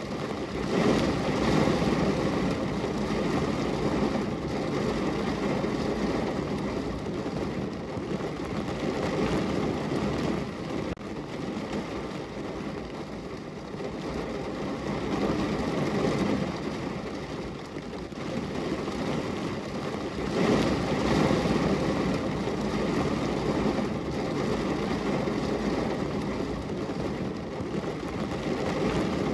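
Rain falling on a window pane: a steady rushing noise that swells louder a few times and eases back.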